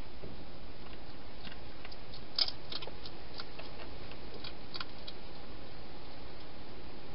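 Hedgehog eating from a bowl inside a plastic feeding box: scattered small crunching clicks, the sharpest about two and a half seconds in, over a steady hiss.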